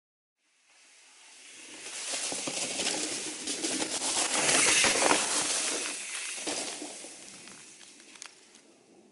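Mountain bike riding past on a dirt trail, its knobby tyres crunching over dry leaves and ground with scattered crackles. It swells to its loudest about halfway through, then fades away.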